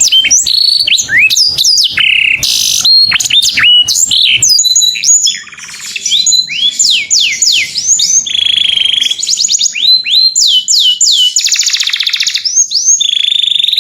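Canary singing a long, continuous song close up: series of quick downward-sweeping notes, with a buzzy roll about eight seconds in and a fast rolling trill near twelve seconds.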